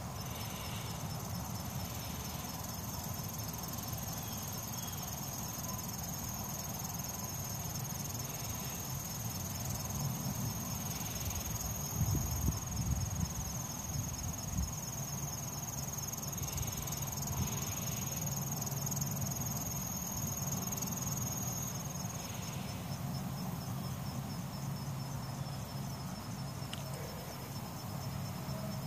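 Insects chirring: a steady high-pitched trill together with a rapidly pulsing one, the highest trill stopping about two-thirds of the way through. Low rumble on the microphone rises around the middle.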